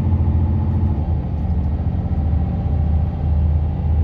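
Heavy truck's diesel engine and road rumble heard from inside the cab while driving, a steady low drone whose engine note shifts about a second in.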